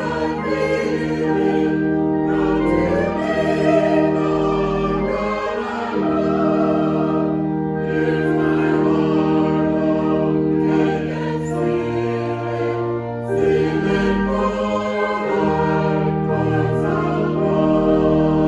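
Choir singing sacred music over sustained instrumental chords, the harmony moving from chord to chord every few seconds.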